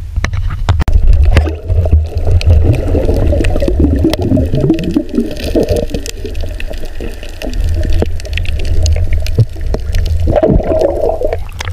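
Underwater sound picked up by a submerged camera while a sea urchin is picked off coral: a steady, muffled low rumble of moving water, many sharp clicks, and a wavering mid-pitched sound that swells twice.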